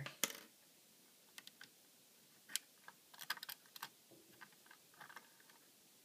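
Scattered light metallic clicks and taps from an LGA775 CPU socket's retention lever and load plate being handled and swung open, with a quick run of clicks about three seconds in.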